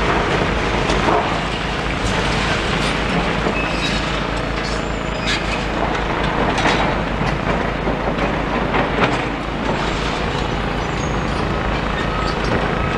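Demolition excavator running with a steady low rumble while its bucket crunches and clears rubble, with scattered knocks and clatters of debris.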